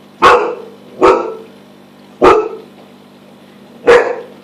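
Siberian Husky barking: four loud, sharp single barks with uneven gaps between them.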